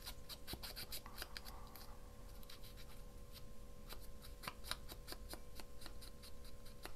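Faint scratching and small clicks of paper being handled and trimmed with scissors on a desk, over a steady faint hum.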